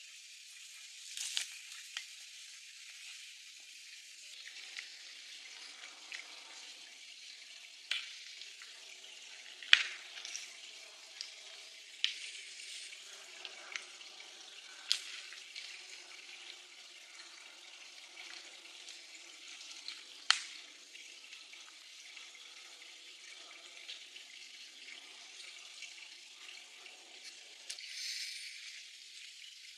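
Sharp knocks, irregularly spaced a few seconds apart, of a hand tool striking stony ground, over a steady high hiss of wet woodland ambience.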